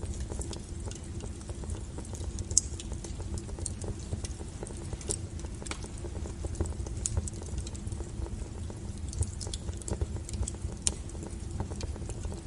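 Burning firewood crackling, with irregular sharp pops and snaps over a steady low rumble of the flames, and one louder pop about two and a half seconds in.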